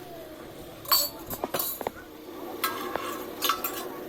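Dishes and cutlery clinking: a run of sharp clinks about a second in, then another run from about two and a half seconds.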